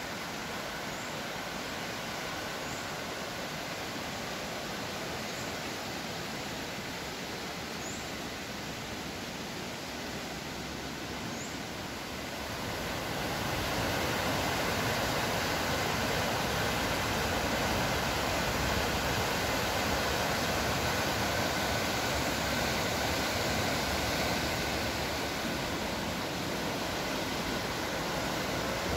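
River water rushing over rocks and small rapids in a rocky gorge, a steady rush that grows louder about twelve seconds in and stays up.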